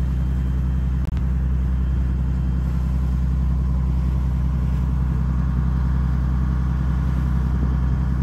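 An engine running at a steady speed: a loud, even low drone that does not change in pitch, with a very brief dropout about a second in.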